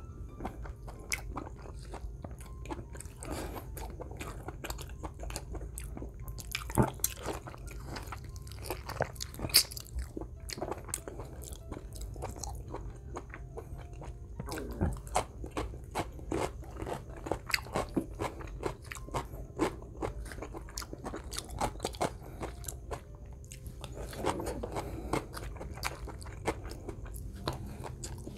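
A man chewing a mouthful of rice and menudo soup, heard up close: continuous wet chewing and lip-smacking with many small clicks, and a couple of louder clicks about seven and ten seconds in.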